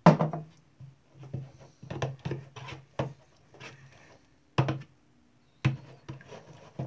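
Metal spoon stirring red PVA glue and borax slime mixture in a plastic bowl, knocking and scraping against the bowl in quick irregular strokes, with a sharp knock at the very start.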